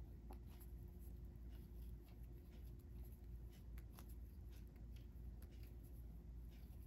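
Faint, scattered light ticks and rustling of a steel crochet hook working fine cotton thread, over a low steady hum.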